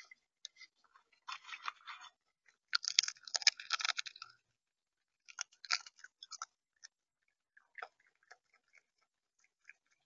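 A creature at the feeder, right against the microphone, pecking at and cracking seed. It makes irregular runs of crunching clicks, loudest about three to four seconds in, and these thin to scattered ticks near the end.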